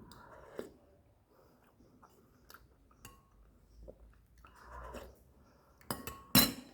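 Dishes and cutlery being handled during a meal: soft rustling and small clicks, then two sharp knocks close together near the end, the second the loudest.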